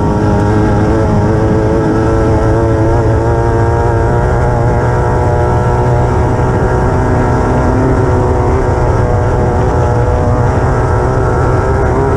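Class 9 desert race buggy's engine running hard under load, its pitch shifting up and down with throttle, over a constant rush of wind and ground noise.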